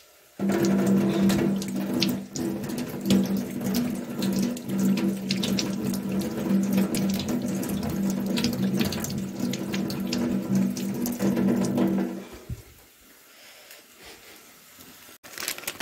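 Kitchen tap turned on, water running into a stainless-steel sink and over a tomato as it is rinsed by hand. A steady low hum runs through the flow. The tap is shut off about twelve seconds in.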